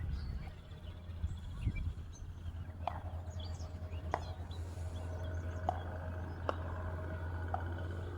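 Pickleball paddles hitting the plastic ball: about five sharp pocks spaced irregularly a second or so apart, over a steady low hum.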